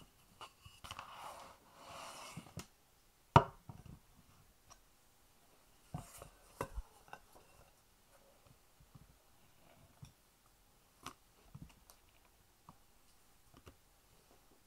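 Hands handling a sheet of puff pastry, a wooden rolling pin and a glass pie dish on a bamboo cutting board: soft rustling at first, then one sharp knock about three and a half seconds in, the loudest sound, and a few lighter knocks and clinks around six to seven seconds, with faint taps after.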